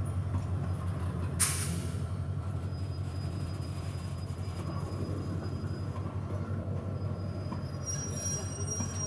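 Container freight train's wagons rolling past close by with a steady low rumble, and a short sharp hit about a second and a half in. A thin, high wheel squeal starts about three seconds in, and several squealing tones sound together near the end.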